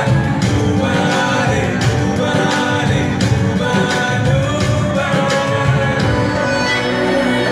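Band music with a steady drum beat and a voice singing.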